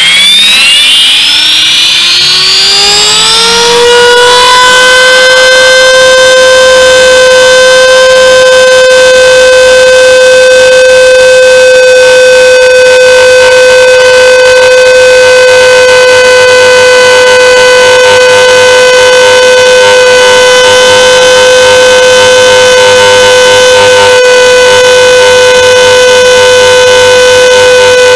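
Align T-Rex 450 electric RC helicopter's motor and rotor drivetrain spooling up, heard from a camera mounted on the helicopter: a loud whine that rises in pitch over the first four seconds or so, then holds one steady high pitch at flying speed.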